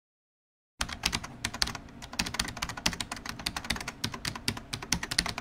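A fast, dense run of small sharp clicks and taps, like typing on a keyboard, starting about a second in and cutting off abruptly.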